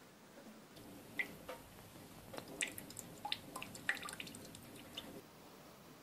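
Water drops plinking irregularly into a stainless steel kitchen sink and a bowl of water, with small splashes, from about a second in until shortly before the end.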